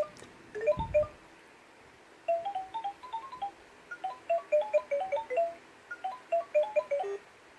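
LeapFrog Chat & Count toy phone playing a short electronic tune from its small speaker: quick, clipped notes in runs, with a pause about a second in and a soft low thump near the start.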